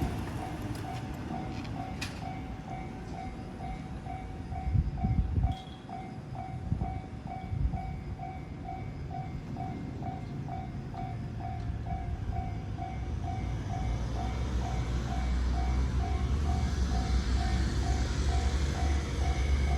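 Japanese level-crossing warning bell ringing steadily, about two electronic dings a second. Under it, passing-train rumble fades away at the start, and a JR Nambu Line train's rumble and rail noise build up again in the last few seconds.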